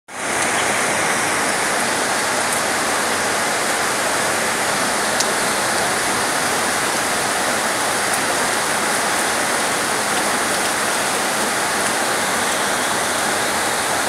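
Heavy rain falling in a steady downpour: a dense, even hiss, with a faint tick or two from drops.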